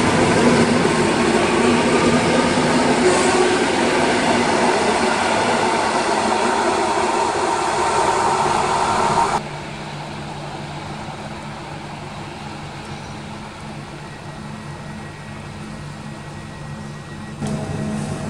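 ED72Ac electric multiple unit running close past a station platform, with loud rushing wheel-and-rail noise. About nine seconds in, a cut drops this to a quieter train approaching with a steady low electric hum. Just before the end, another cut brings in the louder running of a second electric multiple unit.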